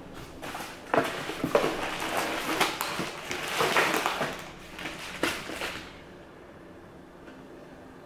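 Packaging crinkling and rustling as it is handled and dug through, with many sharp crackles, stopping about six seconds in.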